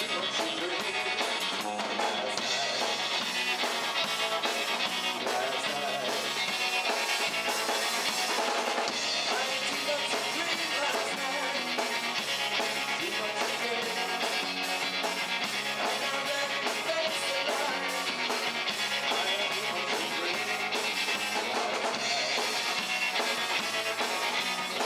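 Live rock band playing: electric guitar over a drum kit, continuous and steady.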